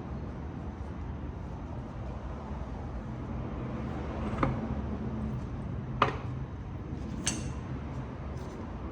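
Three short, sharp knocks of metal parts being handled, about a second and a half apart, the middle one the loudest, over a steady low hum.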